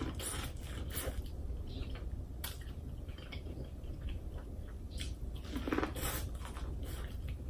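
Close-miked biting and chewing of boiled corn on the cob: short crisp crunches as kernels are bitten off the cob, with wet chewing in between.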